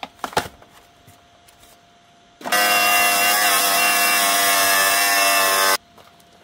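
Angle grinder cutting into a water heater's steel shell: it starts abruptly about two and a half seconds in, runs steadily for about three seconds and cuts off suddenly. Before it come a few short scrapes and knocks of a hand tool on the tank.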